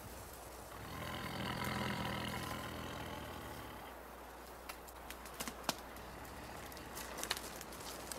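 A snared Siberian tiger growling: one sustained growl of about three seconds that swells and then fades. It is followed by scattered sharp snaps and clicks in the brush.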